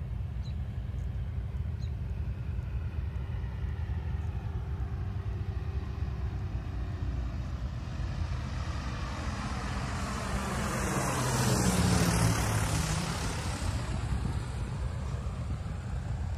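Single-engine propeller light aircraft flying low overhead on landing approach: its engine grows louder to a peak about twelve seconds in, with a sweeping whoosh as it passes, then fades. A steady low rumble lies beneath.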